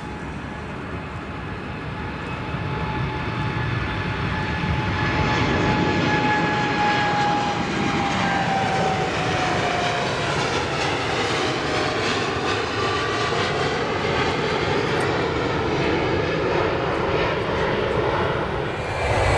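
Boeing 787's jet engines at takeoff thrust, growing louder over the first few seconds as it rolls and lifts off. As it passes close by, the engine whine drops in pitch about eight to ten seconds in, leaving a steady rumble as the jet climbs away.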